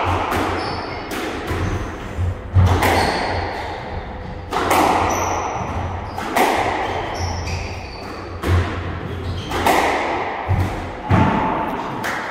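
Squash rally: the ball cracks off rackets and slaps against the walls every one to two seconds, each hit ringing in the court. Short high squeaks from shoes on the wooden floor come between the hits.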